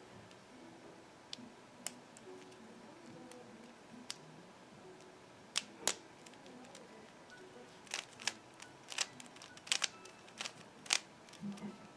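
Plastic clicks and clacks of a Dayan 3x3 speed cube's layers being turned by hand: a few scattered turns, then a quicker run of turns in the second half.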